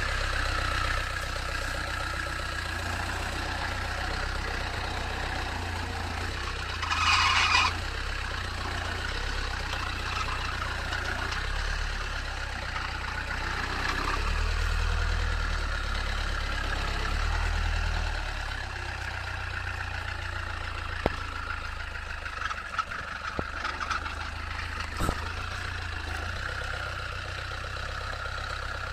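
Land Rover Santana 88 Súper engine running steadily off road, working harder for a few seconds about halfway through. There is a short loud noise about seven seconds in and a few sharp knocks near the end.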